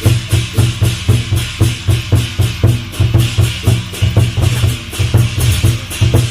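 Loud percussion-led music for a lion dance: a heavy, evenly repeating low drumbeat under a steady high, cymbal-like shimmer.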